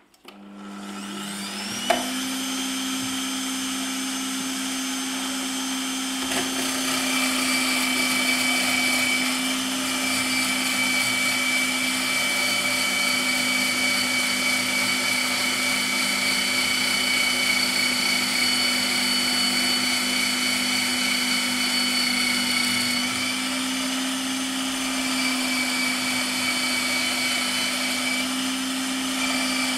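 Bosch MFW3640A electric meat mincer switched on: its motor spins up with a rising whine over about two seconds, with a sharp click, then runs steadily. It gets louder about six seconds in and dips slightly a few seconds before the end.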